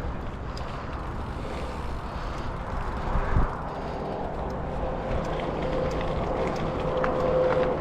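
Mountain bike ride on rocky, rooty singletrack: a steady rush of riding noise with light ticks, and a dull thump a little past three seconds in.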